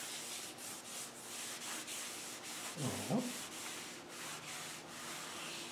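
Cloth rag rubbed back and forth over the metal rocker cover of a Land Rover 2.25 engine, wiping it clean: a steady scuffing made of many quick strokes, with a brief squeak about three seconds in.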